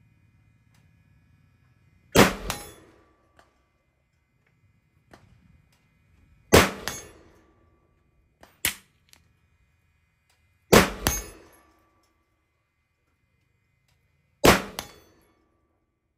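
6.5 Grendel AR-15 pistol with a 12.5-inch barrel firing four spaced shots, about four seconds apart, each trailing off in an echo. A shorter, sharper crack comes in between, about two seconds after the second shot.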